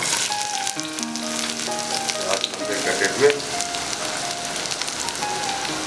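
Sliced onions sizzling and crackling as they hit hot ghee in a frying pan, the sizzle starting at once and carrying on steadily with many small pops, over background music.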